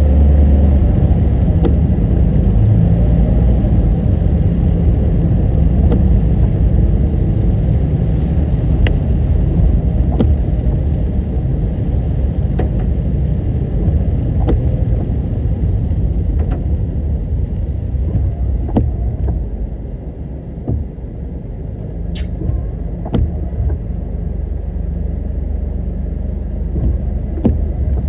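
A car driving, with a steady low rumble of engine and road noise that eases a little about two-thirds of the way through. Faint sharp ticks come every couple of seconds.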